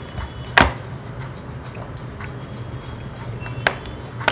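A few sharp clicks of a fine watchmaker's screwdriver working a stuck train-bridge screw in a Bifora B-91 watch movement: one loud click about half a second in and two lighter ones near the end, over a steady low hum.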